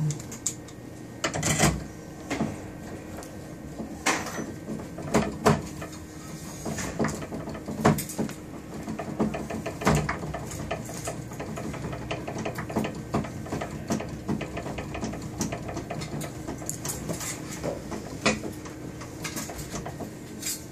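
Irregular clicks and knocks of a Saflok electronic door lock's parts being handled and fitted onto a door during installation, over a faint steady hum.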